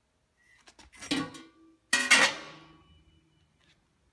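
Two clanks of metal exhaust parts, about a second apart, the second louder. Each is followed by a short ringing tone that fades out.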